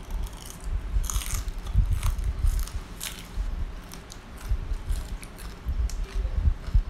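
Chewing and crunching a mouthful of deep-fried grasshoppers, with crisp crackling crunches strongest about one to three seconds in and softer chewing after.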